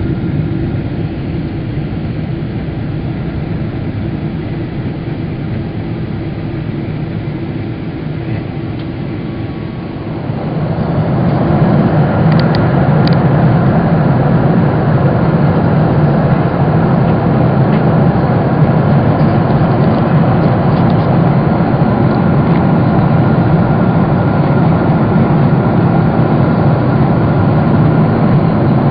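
Boeing 777 jet engines heard inside the passenger cabin: a steady rumble and hum that swells sharply about ten seconds in and then holds steady and louder, as the engines spool up to takeoff thrust.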